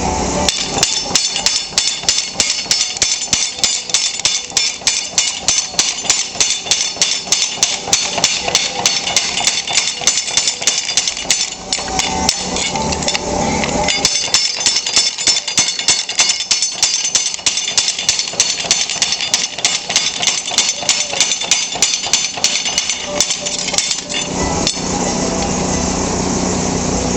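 Little Giant trip hammer pounding a spring swage press brake die at a fast, steady rate of several blows a second, bending a flat steel bar into angle iron. It breaks off briefly about halfway, then stops near the end, leaving the steady hum of the hammer's motor.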